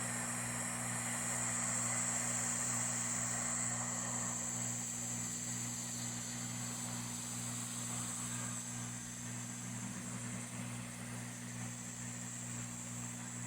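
Hot-air rework station blowing at 300 °C while desoldering a BIOS flash chip from a laptop motherboard: a steady airflow hiss over a low fan hum.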